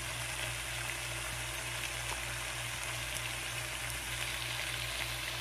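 Shrimp with diced peppers and onion sizzling steadily in a frying pan, a constant frying hiss with small crackles.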